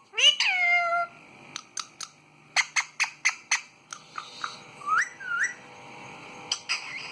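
Indian ringneck parrot whistling: a loud falling whistle right at the start, then a run of short sharp chirps, then two quick rising whistles around the middle and a few more chirps near the end.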